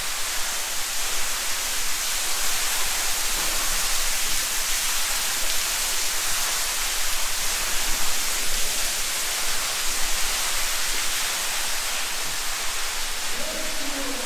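Steady hiss of water raining down an open mine shaft, like a heavy downpour.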